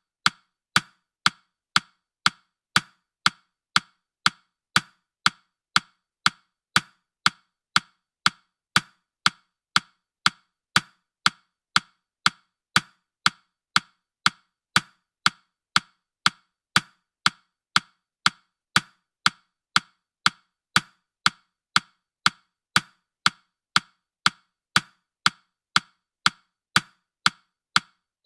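Ticking sound effect of a countdown timer: sharp, wood-block-like ticks, evenly spaced at about two a second.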